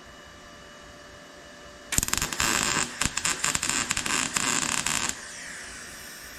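Electric arc welding: a loud, steady crackle for about three seconds as a weld bead is run, starting about two seconds in and stopping abruptly, followed by a faint fading hiss over a low electrical hum.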